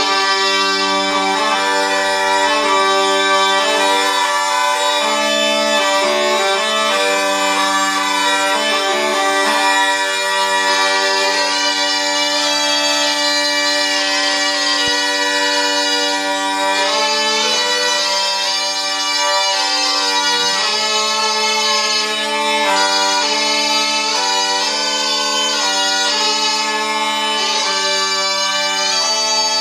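Zampogna, the southern Italian bagpipe, playing a melody over steady drones.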